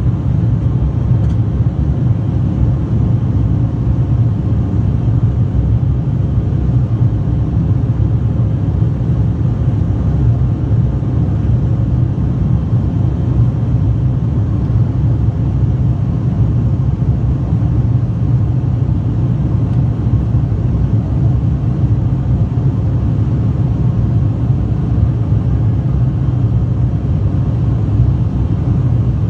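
ATR 72-500 turboprop engines and six-bladed propellers running with a steady, unchanging low drone.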